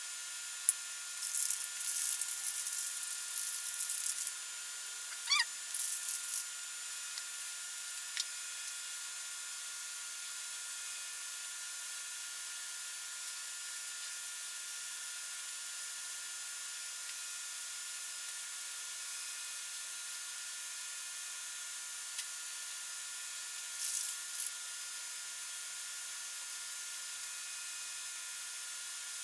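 Aerosol can of two-part epoxy primer spraying in short hissing bursts: several in the first few seconds, a short one about six seconds in and another near the end, over a steady faint hiss.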